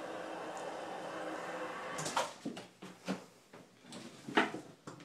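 A steady hum that cuts off about two seconds in, followed by a handful of sharp knocks and bumps, the loudest a little before the end.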